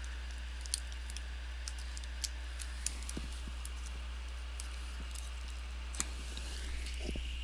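Small, sharp clicks and light scraping of a plastic pry tool working at the latch of a laptop LCD panel's display-cable connector, with a few louder clicks about a second in, around two to three seconds, and at about six seconds. A steady low hum runs underneath.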